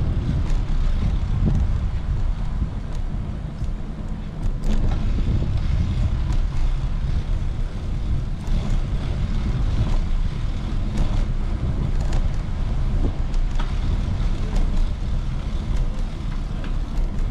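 Wind buffeting the microphone of a camera on a moving bicycle: a steady, loud low rumble, with scattered light clicks and rattles from the ride.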